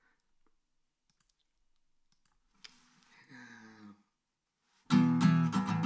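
Near silence with a few faint clicks and a brief faint low sound, then near the end an acoustic guitar starts being strummed loudly in a steady, driving rhythm of chords.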